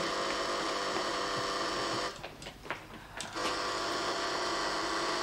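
Steady electric buzzing from a manual telephone switchboard's call buzzer, signalling an incoming call. It breaks off for about a second and a half near the middle, where a few clicks sound, then buzzes on.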